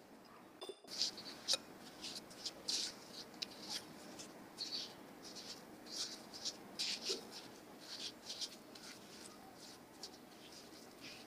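Silicone spatula scraping and mashing softened butter and granulated sugar against a glass bowl. It makes an irregular run of short, gritty scrapes, several a second.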